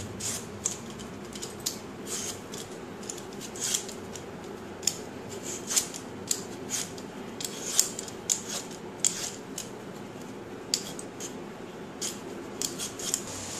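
Vegetable peeler scraping the skin off a raw green mango in short, irregular strokes, about one or two a second.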